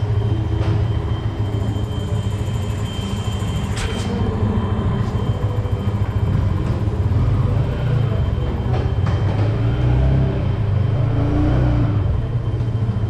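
Yamaha sport motorcycle's engine running at low speed as the bike moves off, a steady low rumble. A few short sharp clicks sound over it, the loudest about four seconds in.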